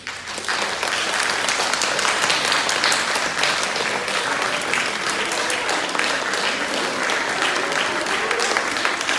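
Audience applauding in a hall, breaking out all at once and keeping up steadily.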